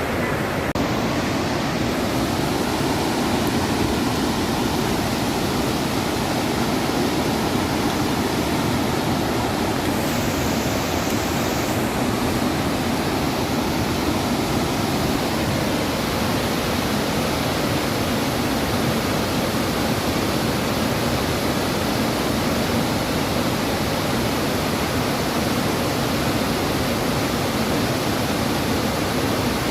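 Bow Falls, a wide, low waterfall on the Bow River, giving a steady, loud roar of rushing water without a break.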